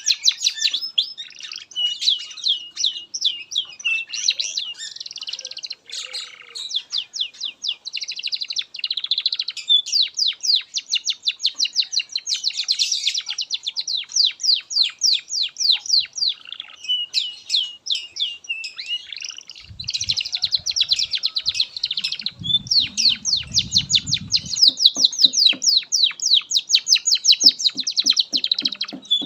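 Domestic canary singing a long, unbroken song of fast rolling trills and rapid repeated chirps, changing from one trill to the next with only brief breaks. A low rumble sounds under the song about two-thirds of the way in.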